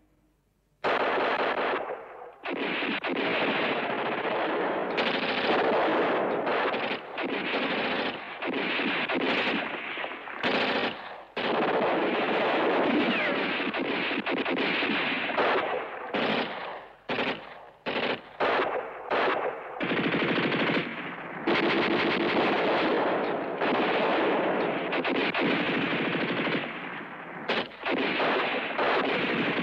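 Long bursts of automatic gunfire, broken by short pauses. It starts about a second in, after a near-silent moment.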